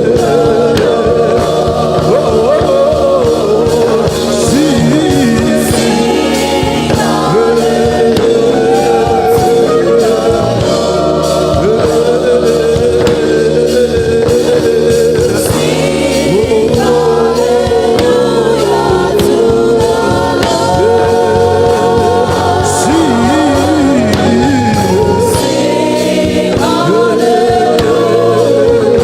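Gospel worship music with singing over a steady instrumental backing.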